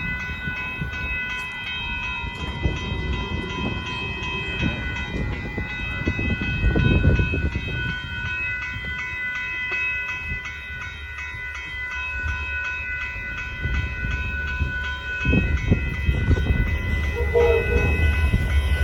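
Railroad crossing bell ringing steadily as a set of high, even tones with a regular tick, over the low rumble of the approaching Amtrak train. The rumble swells sharply right at the end as the train reaches the crossing.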